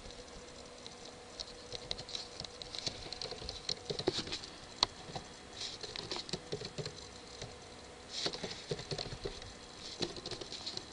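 Typing on a computer keyboard: short runs of quick key clicks separated by pauses, as a few words are typed at a time.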